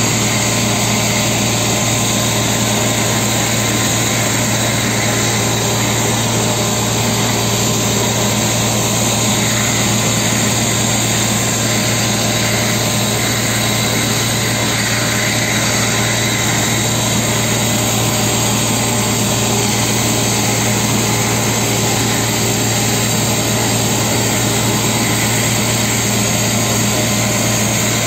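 Truck-mounted spray-injection pothole patcher running: its engine and blower make a loud, steady drone with a low hum while air and stone chips blast from the hose nozzle onto the road.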